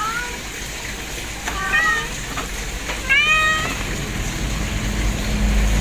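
Kitten meowing: three short, high-pitched meows about a second and a half apart, the last one the loudest.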